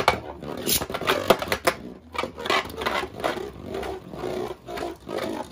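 Two Beyblade Burst spinning tops, Judgment Joker one of them, whirring around a plastic Beyblade stadium with a rapid, uneven run of clicks and clacks.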